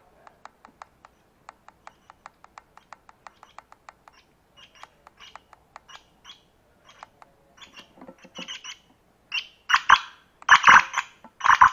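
Handheld bird-lure speaker playing a recorded bird call: a quick series of faint ticking notes, about five a second, then chirps that get louder as the volume is turned up, the loudest coming near the end.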